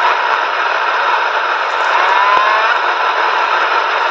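CB radio receiver hiss between transmissions: steady static with a faint rising whistle about two seconds in.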